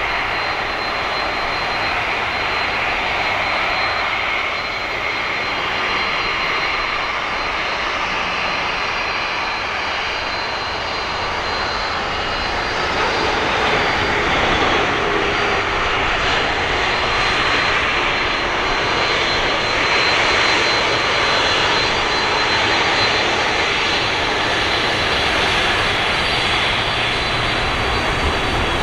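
Airbus A330-200 jet engines during its landing: a steady roar of engine and air noise with a thin, high, steady whine, getting a little louder about halfway through.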